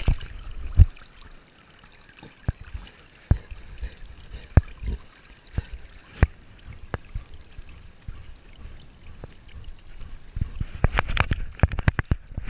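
Pool water sloshing and lapping around a GoPro strapped to a swimming dog, heard from inside the camera's housing, with irregular sharp knocks and splashes. A rapid flurry of louder knocks comes near the end.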